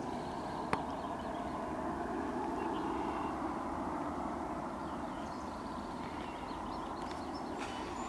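Steady outdoor background noise, like a distant traffic hum, with a single sharp click just under a second in and a few faint high chirps.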